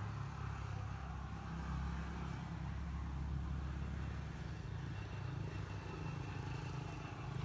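A distant engine running steadily: a low, even rumble.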